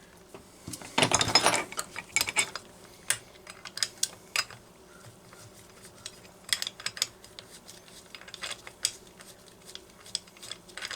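Scattered metal clinks and clicks, with a short scraping rattle about a second in, from handling a flywheel puller and a chainsaw flywheel that has just been pulled loose from its crankshaft.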